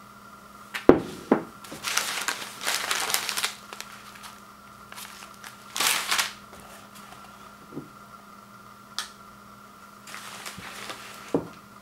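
Paper instant-oatmeal packets rustling and crinkling as they are handled, in several bursts, with a knock about a second in as a ceramic bowl is set down on a wood floor and another light knock near the end.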